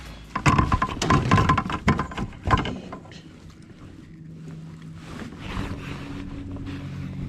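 Knocks and rattling from a largemouth bass being handled and laid on a plastic fish-measuring board inside a kayak. The knocks come thick in the first two and a half seconds, then it goes quieter.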